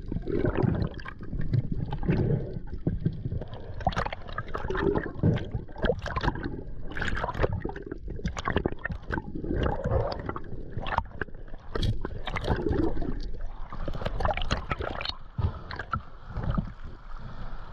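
Water sloshing and gurgling around an underwater camera, with many irregular knocks and clicks as the spearfisher moves and handles his catch.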